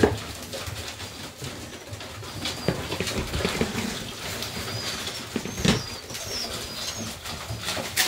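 Serbian Highflyer pigeons cooing, with short high chirps among the calls. Two sharp knocks stand out, one right at the start and one past the halfway point.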